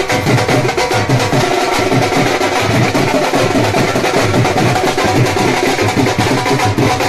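Dhol drum beaten in a fast, steady dance rhythm.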